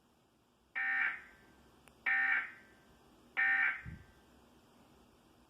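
Emergency Alert System end-of-message data bursts: three short electronic screeching bursts about 1.3 seconds apart, each trailing off briefly, signalling the end of the alert.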